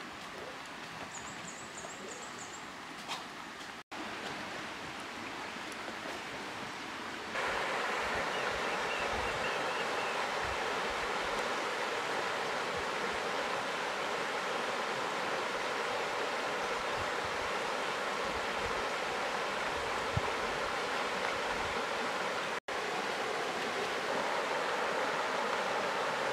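Steady rushing noise of flowing river water, suddenly louder about seven seconds in. A short run of high chirps sounds about a second in.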